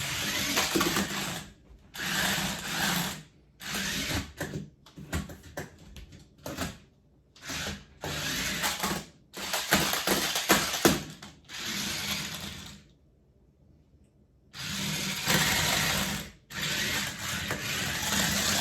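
Toy RC stunt car's electric drive motors whirring in repeated bursts of one to two seconds as it is driven in stops and starts, with a few sharp knocks in between and one longer pause near the middle.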